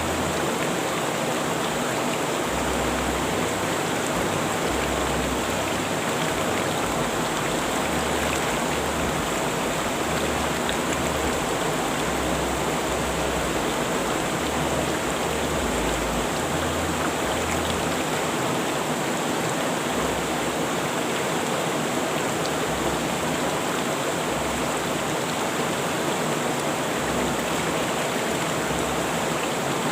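River water rushing over rocks, a steady, even rush of flowing water.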